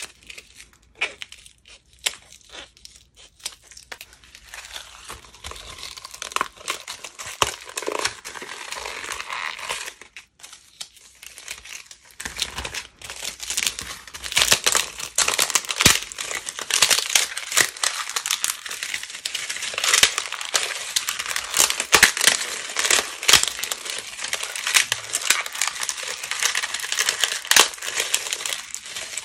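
Dried slime skins crinkling and crackling like thin plastic film as they are cut, crumpled and peeled apart by hand. It starts as scattered separate crackles and snips, then becomes dense, loud crinkling through the second half.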